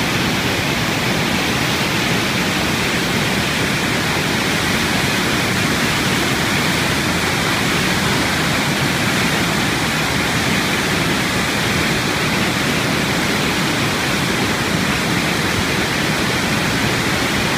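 Upper Spokane Falls in heavy flow: a large volume of white water pouring over rock, a loud, steady rush with no let-up.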